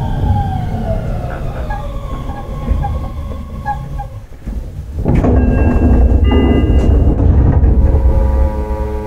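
On-board running sound of a Shin-Keisei 8900 series commuter train: the Mitsubishi IGBT VVVF inverter whine glides down in pitch and fades over the first few seconds. About five seconds in, a loud rumble of wheels and running gear sets in, with steady high tones above it.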